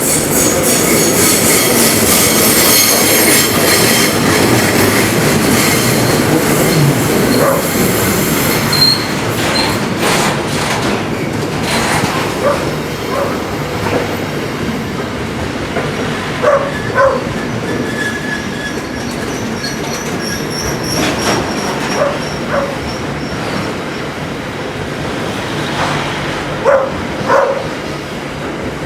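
Freight train wagons rolling past, with high-pitched wheel squeal over the first eight seconds or so. After that the rumble of the wheels on the rails carries on, with a few short knocks that come in pairs.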